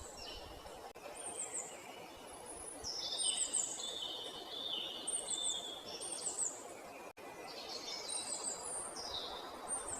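Several birds calling in a forest: short, high, descending chirps repeat every second or so, with overlapping lower warbling calls, over a steady hiss of forest ambience.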